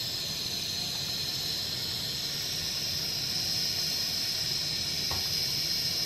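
A steady hiss, strongest in the high range, with a low hum underneath and two faint brief tones near the end.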